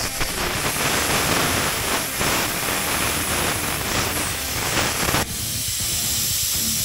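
Harbor Freight Titanium 65 plasma cutter with a PlasmaDyn torch, run by an ArcDroid CNC, cutting steel plate. It starts with a sharp click, gives a loud, steady hiss and crackle, and cuts off abruptly about five seconds in, when the arc goes out. A softer hiss of the torch's air flow carries on after that.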